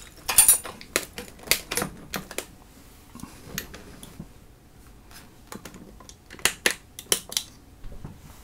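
Sharp clicks and taps from guitar effects pedals being handled on a pedalboard: one flurry in the first two and a half seconds and another from about six to seven and a half seconds in, with a few lighter ticks between.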